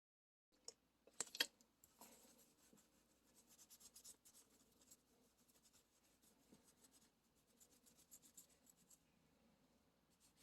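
A lint-free rag rubbing and wiping over a metal waterblock in faint, uneven strokes, after a couple of sharp clicks about a second in.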